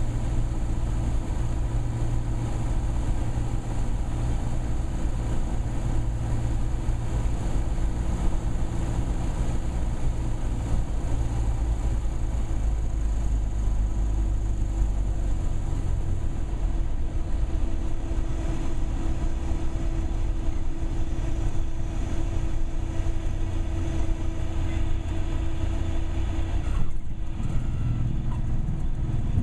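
A Cessna 172's piston engine and propeller droning steadily in the cockpit with wind noise, on final approach to landing. The sound briefly dips near the end.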